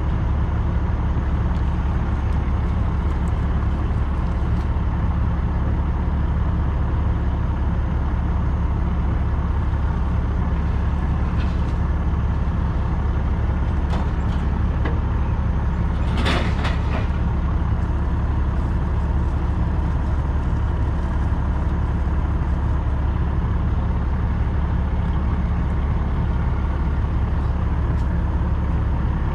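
Diesel truck engine idling steadily, with a short hiss of air about sixteen seconds in.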